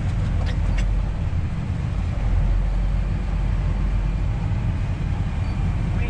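Steady low rumble of a tractor engine heard from inside its cab, with a combine running alongside and unloading corn into the grain cart.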